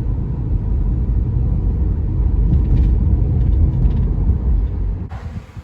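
Loud, steady low rumble of a vehicle on the move, cutting off suddenly about five seconds in.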